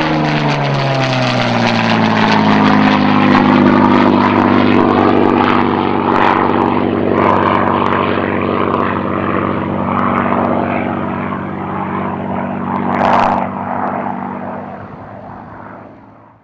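Spitfire Mk.XVIe's Packard Merlin V12 engine and propeller running. The pitch drops over the first couple of seconds, then the note holds steady. A short burst of noise comes about thirteen seconds in, and the sound then fades away.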